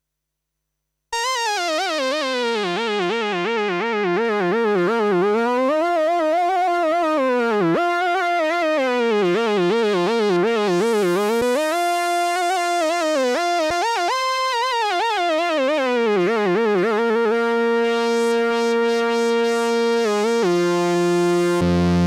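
Korg Monologue monophonic analog synthesizer playing a single-note lead line. It starts after about a second of silence, with a fast, wide vibrato and pitch that swoops up and down. Later the vibrato stops and the notes are held steady, ending on a lower note.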